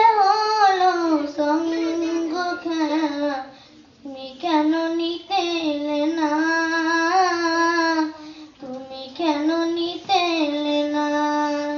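A young girl singing a Bengali Islamic song (gojol) solo, without instruments, in long held, wavering notes. There are short breath breaks about four and eight and a half seconds in.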